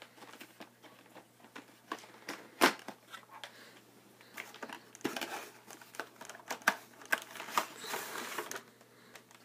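Cardboard trading card box being opened by hand: scattered sharp snaps and clicks, the loudest about two and a half seconds in, with its clear plastic insert and card packs crinkling and rustling.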